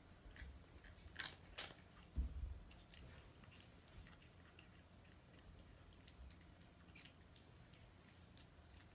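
A cat chewing and crunching dry kibble: scattered faint crisp clicks, with a dull low thump about two seconds in.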